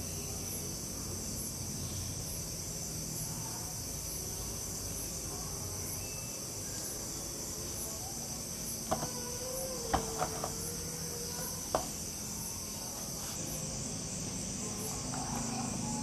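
Steady high-pitched chirring of crickets in the background, pulsing evenly. A few light clicks near the middle, from the glued pack of cylindrical battery cells being handled.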